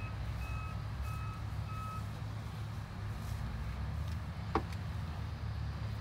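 A vehicle's reversing alarm beeps a little under twice a second and stops about two seconds in, over a steady low engine rumble. A single sharp click comes past the middle.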